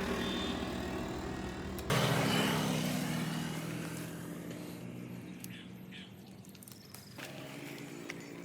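A passing motor vehicle's engine: it rises suddenly about two seconds in, then fades gradually as it moves away.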